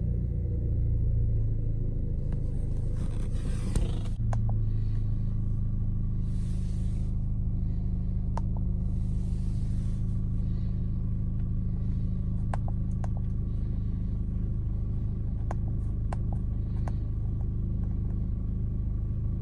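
Audi 1.8T turbocharged four-cylinder engine idling steadily after a cold start, with the misfire it has when cold. Scattered sharp clicks sound over the steady hum, and there is a brief rustle about four seconds in.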